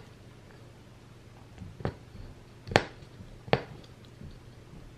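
Punch needle stabbing yarn through fabric stretched on a frame: three sharp pops, a little under a second apart, starting about two seconds in.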